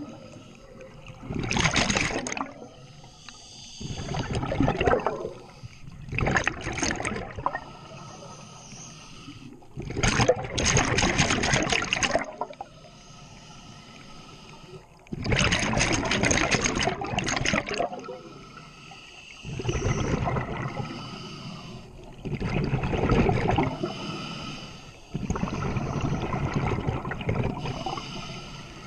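Underwater scuba breathing through a regulator: about eight loud bubbling exhalations a few seconds apart, with quieter hissing inhalations between them.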